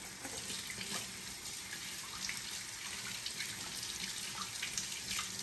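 Kitchen faucet running steadily into a sink as a freshly peeled carrot is rinsed under the stream.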